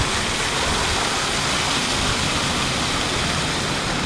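Waterfall heard close up: a steady rush of falling water that does not change.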